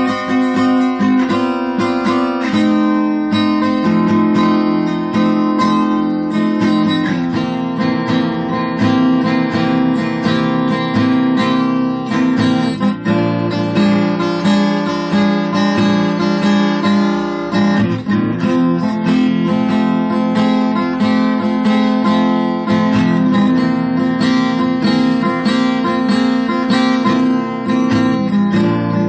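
A blues tune played on guitar, strummed chords mixed with picked notes, without a break.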